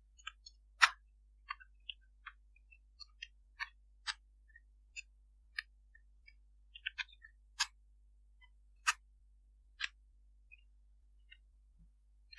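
Computer keyboard keystrokes as code is typed: sparse, uneven clicks, a few much louder than the rest.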